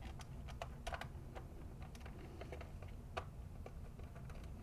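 Faint, irregular light clicks and taps of small hand tools and the plastic body of a toy remote-controlled car being handled as it is taken apart, over a low steady hum.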